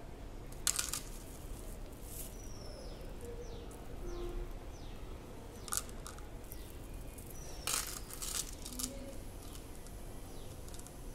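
Scattered light clicks and rustles from a gold-plated choker with pearl-bead drops being handled, its beads and chain knocking together. Two of the clicks stand out, about a second in and near eight seconds in.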